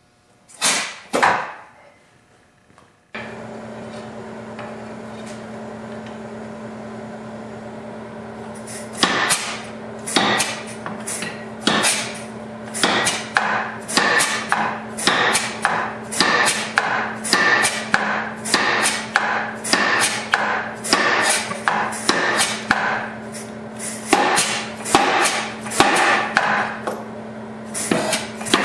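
KZ100 compressed-air power hammer, set up as a treadle hammer, striking hot steel on the anvil die. There are two blows near the start. After about three seconds a steady hum sets in, and from about nine seconds in come repeated blows at roughly two a second.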